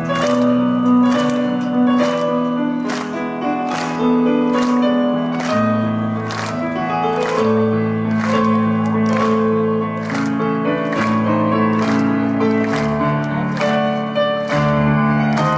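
Band playing an instrumental passage of a song, with keyboard and bass notes over a steady beat of about two strikes a second.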